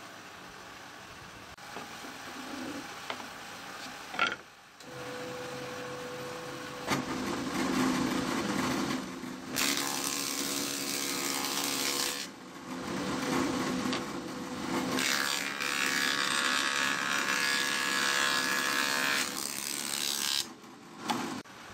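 Thickness planer running steadily, with pine boards fed through its cutter head: louder planing noise in two long passes, with a short dip between them.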